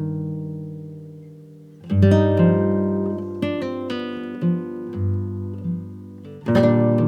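Acoustic guitar music: chords struck about two seconds in and again near the end, with single plucked notes between, each ringing and fading.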